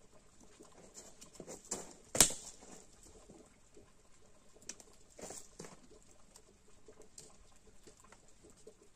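Small wood fire crackling as sticks and embers under a teapot are poked and moved, with scattered light clicks and one sharp knock about two seconds in.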